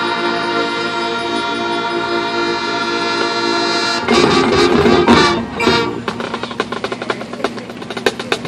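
High school marching band playing its field show: the brass and winds hold a long chord, then swell louder about four seconds in and break off about two seconds later. After that, quick, light percussion strokes carry on in an even pulse.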